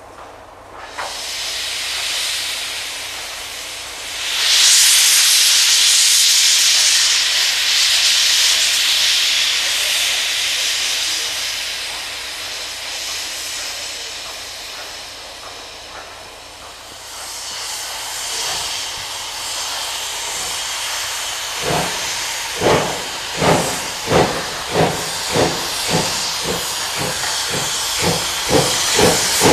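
Class 41 2-8-2 steam locomotive 41 1231-4 starting a passenger train. A long, loud hiss of steam blows out low at the front of the engine, then about two-thirds of the way through the exhaust chuffs begin and quicken as it pulls away.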